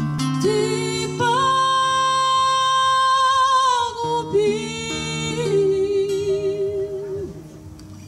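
Sound check on a small festival stage: a voice holds long sung notes with a slight wobble through the PA, over a low sustained tone. It fades out a little after seven seconds in.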